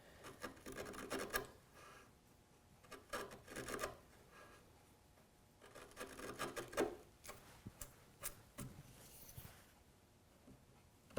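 Chisel paring thin shavings from the floor of a hinge leaf mortise in wood, taking a little more off so the leaf sits flush. Faint scraping strokes in three short bursts a few seconds apart, with a few light ticks later on.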